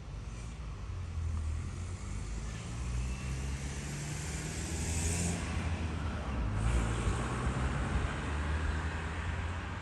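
A motor vehicle's engine running close by, a steady low hum, with a swell of road or tyre noise about halfway through.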